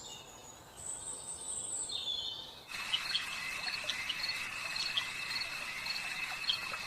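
Background nature ambience: faint bird calls, then from a sudden change about two and a half seconds in, crickets chirring steadily with small regular chirps over the top.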